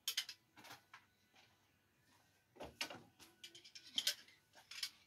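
Steel throwing screwdrivers clicking and clinking against one another in a hand, in short irregular knocks and jingles, as they are gathered from the wooden target and carried back for the next throws.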